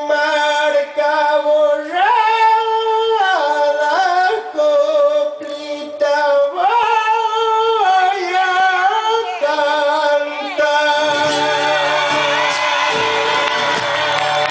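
A man singing long, held notes into a microphone, moving up and down in steps without clear words. A low instrumental accompaniment comes in near the end.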